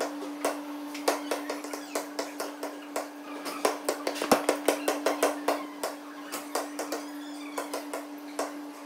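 Basketballs bouncing on a hard gym floor: an irregular run of sharp bounces, several a second, with one deeper thud about four seconds in, over a steady low hum.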